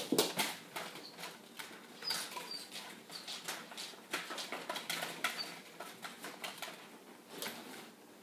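A big dog and small puppies scuffling in play, their claws and paws scraping and tapping on a hard floor and a fabric dog bed in an irregular string of short scratches and taps. A few brief high squeaks sound among them.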